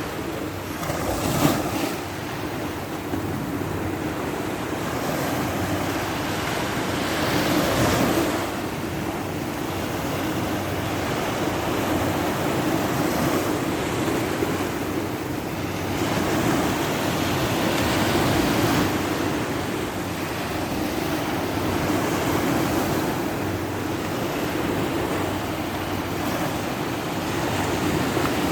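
Sea surf washing on the shore, its rush swelling and easing every several seconds. A brief sharp knock comes about a second and a half in.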